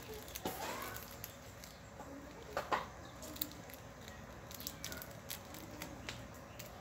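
Faint handling noise from fingers on a phone: scattered light clicks and rubbing, a few of them louder, with a short chirp-like call about half a second in.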